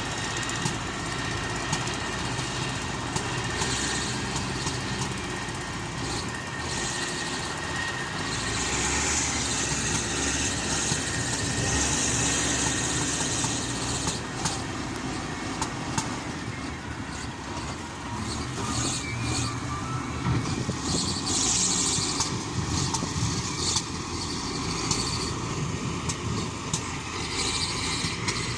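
Diesel engine of a working construction machine running steadily, with scattered knocks and two longer spells of hiss.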